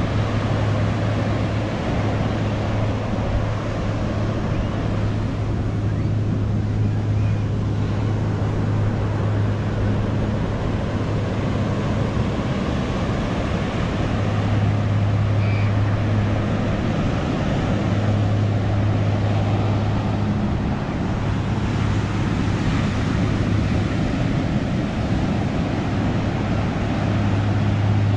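Ocean surf washing steadily onto the beach, with a constant low hum underneath.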